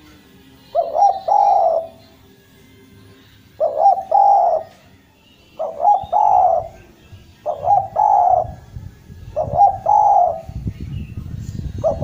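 Spotted dove (derkuku) cooing, five calls about two seconds apart, each a quick stuttered note then a longer low coo. A low rumble rises under the calls near the end.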